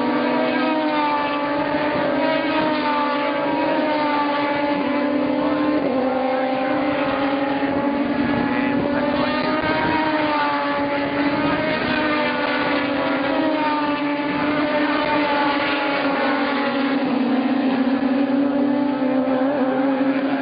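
GT3 race car engines running at steady revs, their pitch drifting gently up and down.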